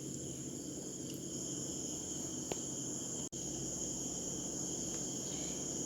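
Crickets chirping steadily in the background, over a faint low hum.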